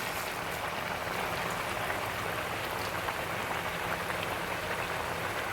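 Malabar spinach, potato and pumpkin sizzling steadily as they fry in oil in a kadai.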